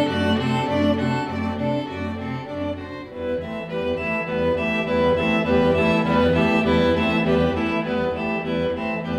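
Background score music: sustained notes over a repeated low note, with a louder, higher melody coming in about three to four seconds in after a brief dip.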